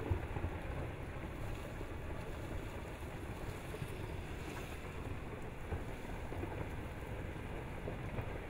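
Steady rushing rumble of a rockfall avalanche pouring down the lava dome of Paluweh volcano as part of the dome collapses, with wind on the microphone.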